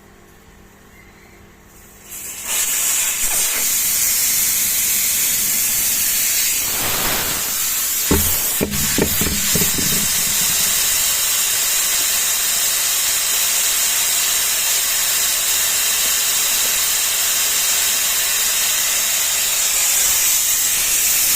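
Loud, steady hiss of compressed air during a truck brake-pad change, starting about two seconds in, with a few metallic clanks partway through.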